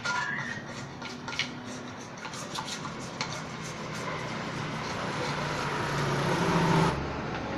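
Light clicks and rubbing of small metal engine parts being handled, over road traffic. An engine drone grows louder through the second half and cuts off abruptly near the end.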